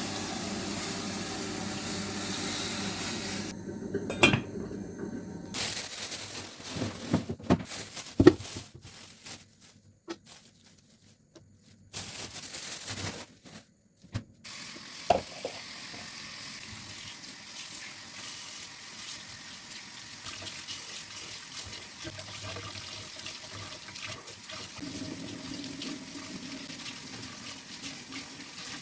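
Kitchen work sounds in several short cuts: water running at a sink, with scattered clinks and knocks of dishes.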